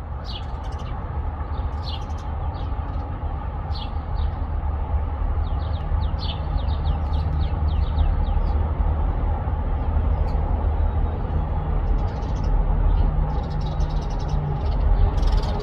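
Small birds chirping: many short, high, down-slurred chirps, some in quick runs, thinning out about halfway through. Underneath, a steady low rumble runs louder than the birds.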